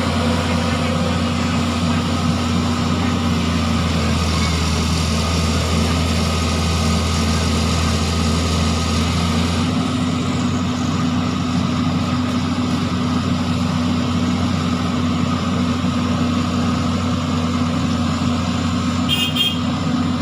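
Heavy diesel machinery engine running steadily, its low hum shifting about halfway through, with a short high beep near the end.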